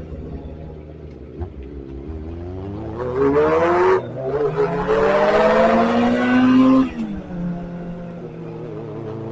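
Sport motorcycle's inline-four engine accelerating hard. The revs climb from about two seconds in, break briefly at a gear change around four seconds, and climb again to a high whine. Near seven seconds they fall sharply, then settle to a steady cruise.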